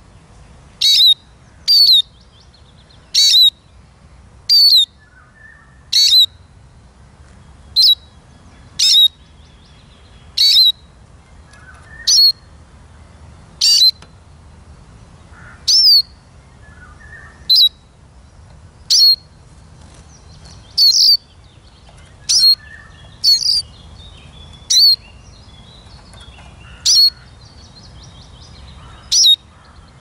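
Male Eurasian siskin calling over and over: short, high, clear notes, roughly one every second and a half, loud and close.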